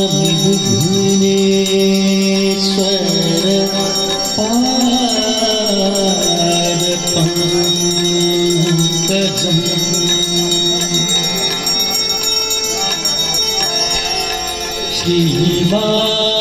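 Hindu devotional hymn sung in long held, gliding notes, with ritual hand bells ringing steadily through it: the music of an evening aarti.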